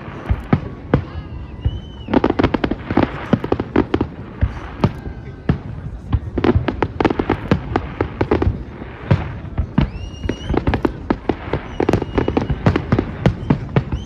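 Fireworks going off in rapid succession: a dense run of sharp bangs and crackles, with a few whistles that rise in pitch and then hold.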